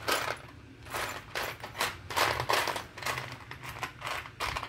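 Hands rummaging through a box of loose electrolytic capacitors: a string of irregular rustles and small clicks as the parts are sifted and shifted.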